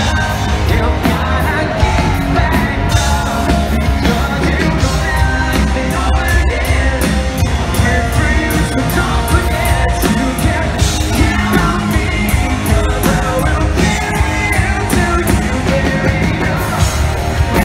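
Rock band playing live with a singer, regular drum hits under the vocals.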